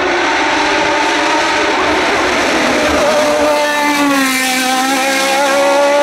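Open-cockpit sports-prototype race car accelerating hard uphill, its engine at high revs. The pitch shifts about three seconds in, then climbs slightly and holds.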